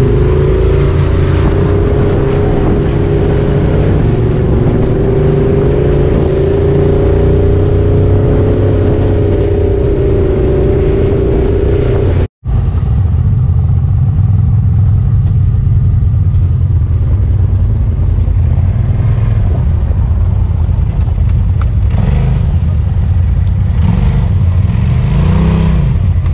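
Honda Talon X4 side-by-side's engine running at trail speed, with a steady whine over the engine note for the first half. The sound drops out for an instant about halfway through, and a brief rev rises and falls near the end.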